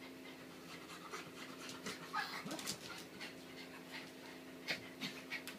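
Pug panting, a run of short breaths.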